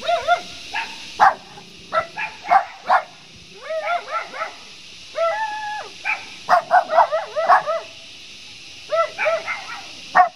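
A dog barking repeatedly in quick runs of several barks with short pauses between, including one longer drawn-out bark about five seconds in.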